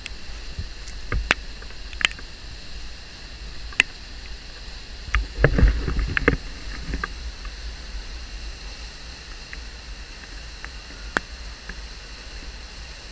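Steady rushing of a muddy flash-flood waterfall plunging into its pool, with a few sharp clicks and a brief cluster of low thumps about five to six and a half seconds in.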